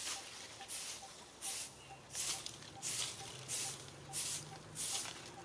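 Insects calling in rhythmic pulses of high, hissing buzz, about three pulses every two seconds. A faint, quick repeated pip sounds underneath.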